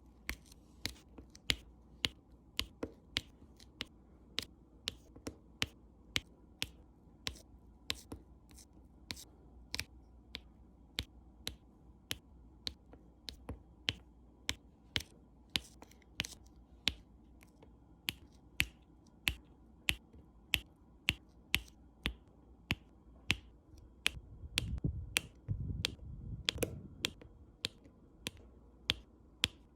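Diamond painting drills popping as they are pressed onto the canvas: sharp pops, roughly two a second at uneven spacing. A low rumble of handling noise comes in briefly near the end.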